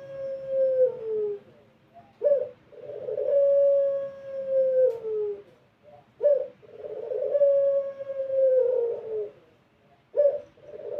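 Puter pelung, a long-voiced domestic Barbary dove, cooing: each coo is a short opening note followed by a long drawn-out note that slides down in pitch at the end, repeated about every four seconds, with two full coos and the start of a third.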